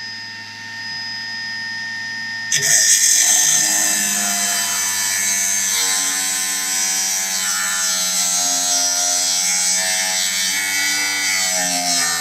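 Milwaukee M18 FUEL 9-inch brushless cordless cut-off saw: the motor spins with the blade lifted clear, then about two and a half seconds in the blade bites into a piece of high-carbon steel and grinds through it. Under the load the motor's pitch wavers.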